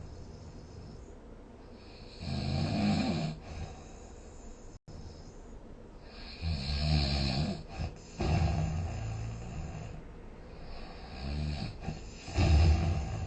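A sleeping person snoring: about five snores with a low rattle, each about a second long and a few seconds apart, the last ones coming close together near the end.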